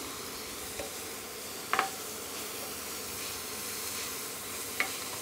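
Aloo methi sabzi sizzling and hissing steadily in a hot wok, with two sharp clicks of the spatula against the pan, one about two seconds in and one near the end.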